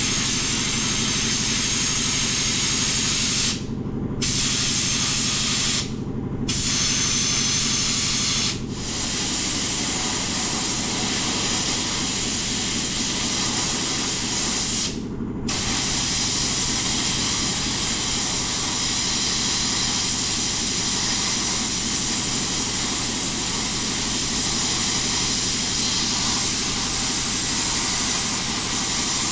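Small hand-held sandblasting gun spot-blasting rivet heads with dry black iron sand: a steady, loud blast of air and grit that stops briefly four times, at about 4, 6, 8 and 15 seconds in.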